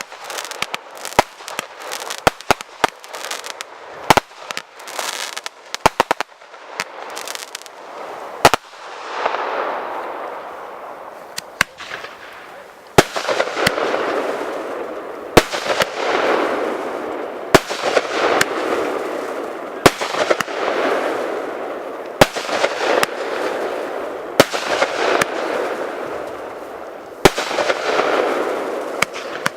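Fireworks display: a quick run of sharp bangs, then bangs about every two seconds, each followed by a crackling hiss.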